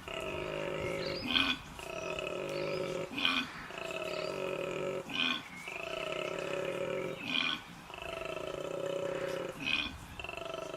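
Koala bellowing its mating call: a repeated cycle about every two seconds of a long, rasping, slightly falling note, each followed by a short, louder gasp.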